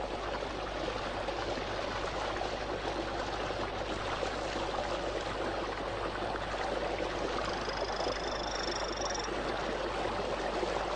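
Steady rushing noise of a fast-flowing stream. About seven and a half seconds in, a high-pitched call of a Brazilian torrent frog (Hylodes asper) sounds for under two seconds, barely standing out above the water.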